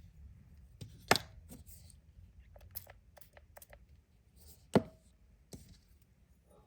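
Small objects knocking and clicking on a hard tabletop: two sharp knocks, about a second in and near five seconds, with a quick run of light clicks between them.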